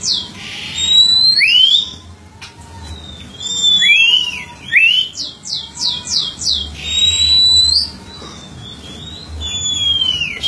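Oriental magpie-robin singing: clear whistles sliding up and down, two runs of quick falling notes and a few short harsh rasps between phrases.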